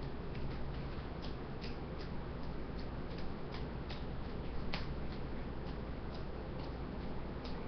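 Juggling balls caught in the hands during a continuous three-ball cascade: a regular run of short catch sounds, about two to three a second.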